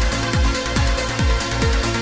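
Trance music: a four-on-the-floor kick drum at about 140 beats a minute under sustained synth chords and hi-hats.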